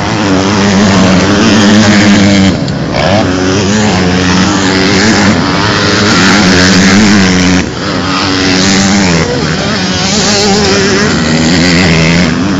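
125cc two-stroke motocross bike engines revving hard as riders race past, the engine note rising and falling in pitch. It drops out sharply for a moment twice, about two and a half and seven and a half seconds in.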